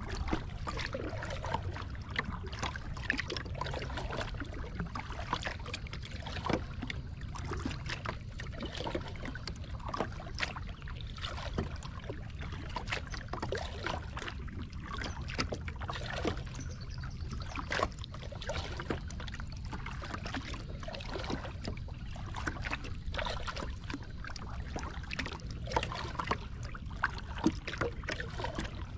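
Lake water lapping and splashing against the plastic hull of a Moken 12.5 sit-on-top kayak in many small, irregular slaps, over a low steady rumble.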